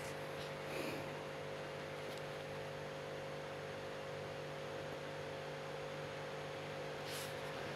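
Faint, steady electrical hum made of a few fixed tones.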